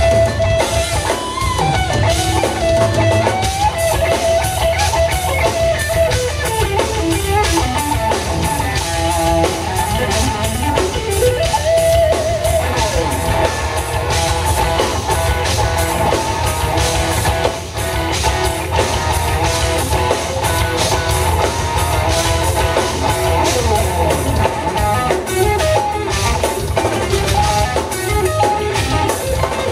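Live instrumental rock from a guitar, bass and drums trio: an electric guitar plays a melodic lead line with bends, over bass guitar and a drum kit.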